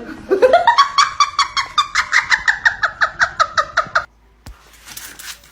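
An animal's rapid pulsed call, about eight pulses a second, rising in pitch over the first second and then holding steady before cutting off abruptly.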